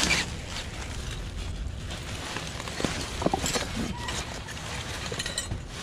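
Plastic trash bags and bubble wrap rustling and crinkling as gloved hands dig through a dumpster, with scattered faint ticks and a low rumble underneath.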